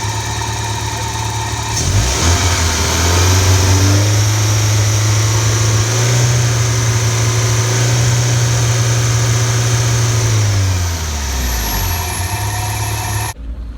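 Nissan D21 Navara's petrol engine running just after being restarted from a hydro-lock, with the water cranked out through the spark plug holes. About two seconds in it is revved up, held at high revs for several seconds, then eased back down toward idle near the end.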